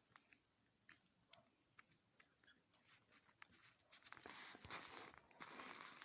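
Snow crunching and creaking: a few faint, scattered crunches, then from about four seconds in a denser, louder run of crunching.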